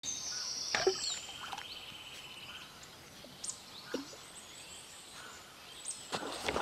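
Small birds singing in the reeds with high whistles and a buzzing trill, then a short splash about halfway through as a pike strikes a surface popper lure.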